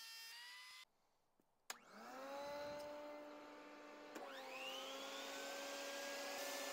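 A shop vac switches on and spins up to a steady whine. About two and a half seconds later a benchtop table saw motor starts with a click and winds up to speed, its rising whine joining the vac's, and both run on steadily. A short steady tone cuts off under a second in, before either starts.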